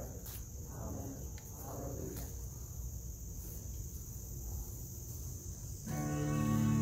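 Insects chirring steadily at a high pitch, with faint voices murmuring in the first couple of seconds. Near the end, instrumental music starts suddenly with held low notes.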